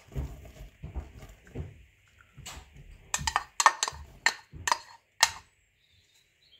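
Fried gram-flour dumplings (phulkiyan) tipped from a ceramic bowl into a glass bowl of yogurt with soft low thumps, then a quick run of sharp clinks and knocks as the crockery and spatula strike the glass bowl to shake out the last pieces.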